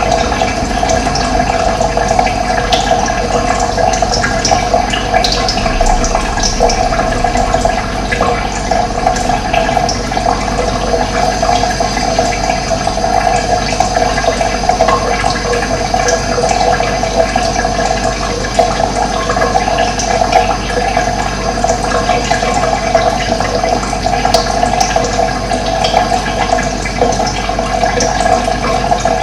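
Running water rushing steadily and evenly, with no break or change.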